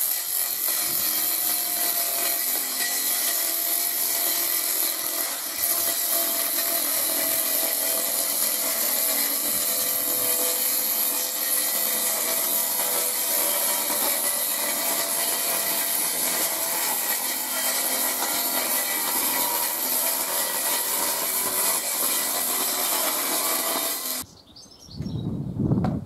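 Power saw running steadily as it rips lengthwise through a long PVC cladding board, a continuous rasping cut with a steady motor tone. It stops suddenly about two seconds before the end.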